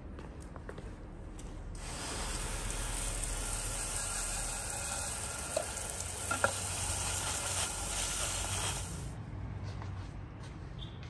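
Garden hose spray nozzle hissing as a jet of water washes over a wooden cutting board. The spray starts about two seconds in and cuts off sharply about two seconds before the end, with a brief tap midway.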